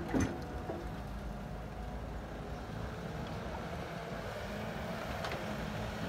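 Hydraulic excavator's diesel engine running steadily while it loads a dump truck. A short thud comes right at the start as a bucket of soil drops into the steel truck bed.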